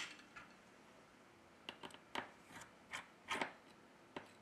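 Faint, irregular clicks and taps of small metal repair tools against the opened smartphone's metal board shields and frame. There are about seven short clicks, bunched in the second half.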